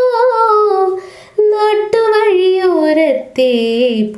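A Malayalam song sung in a high voice, slow and held on long, wavering notes, with brief pauses for breath about a second in and again near the end.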